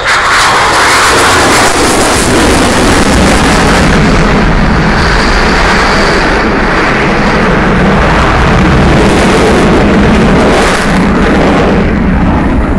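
Eurofighter Typhoon's twin Eurojet EJ200 engines at full power as the jet pulls up and climbs away: loud jet noise that comes in suddenly and holds steady.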